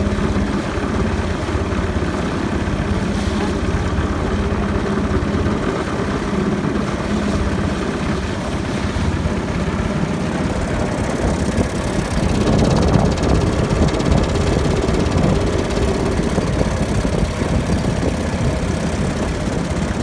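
Boat engine running steadily, growing louder about two thirds of the way through.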